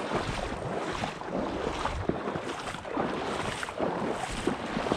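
Wind buffeting the microphone over shallow water sloshing and splashing, an irregular noisy rush with no steady tone.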